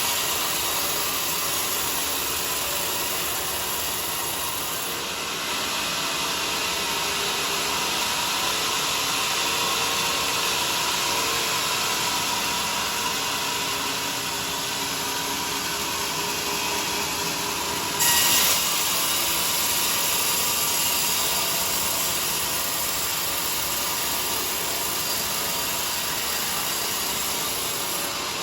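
Bandsaw sawmill cutting through a teak log with a steady, continuous noise, and one brief louder burst about two-thirds of the way through.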